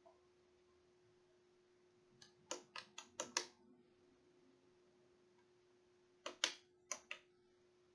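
Sharp plastic clicks and taps from a small coffee machine's controls and parts being handled: about six quick clicks a little past two seconds in, then four more near six seconds. A faint steady hum runs underneath.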